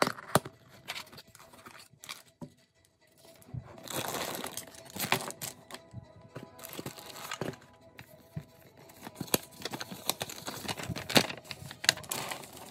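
Thin clear plastic parts bags crinkling and rustling as they are handled, in irregular bursts with a few sharp clicks; the busiest stretch comes about four seconds in.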